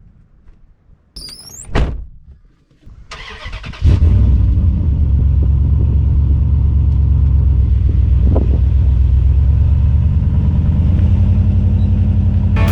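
A vehicle engine starts about three to four seconds in and then runs steadily and loudly.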